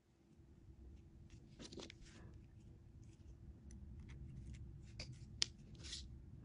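Faint clicks and scrapes of steel pliers gripping and bending the wire of a small safety pin to shape a fishing hook, with one sharp click about five and a half seconds in.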